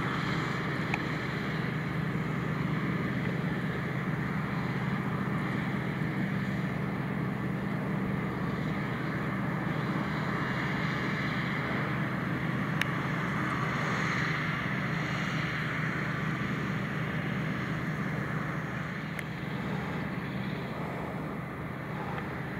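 Krone BigX 770 self-propelled forage harvester running steadily at working speed while chopping maize, together with the tractor that pulls the trailer alongside it, a continuous even drone.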